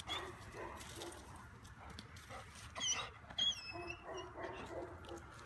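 Yellow Labrador whining while held on a short lead: a few short, high-pitched falling whimpers about three seconds in, with fainter whines around them.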